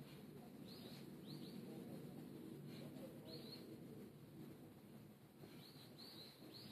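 Faint, short high chirps of a bird, coming in twos and threes with each note dipping in pitch, over a low steady background noise.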